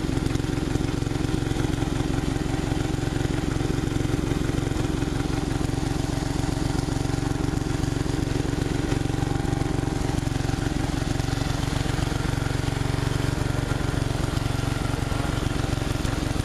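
1977 Wheel Horse A90 garden tractor's engine running steadily, with an even, unchanging beat.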